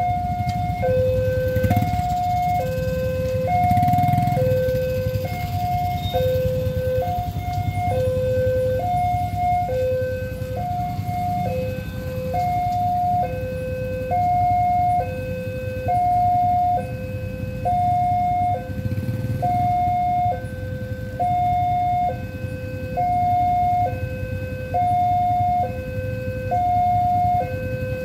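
Railroad level-crossing warning alarm sounding a high tone and a low tone in turn, about one pair every two seconds, signalling an approaching train with the barriers down. Under it is the low rumble of passing motorcycles, strongest a few seconds in and again about two-thirds of the way through.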